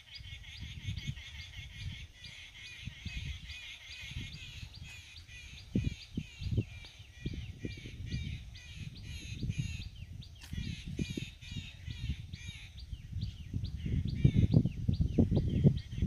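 Birds chirping in rapid repeated short notes, several a second, over low rustling and bumping noises that grow busier near the end.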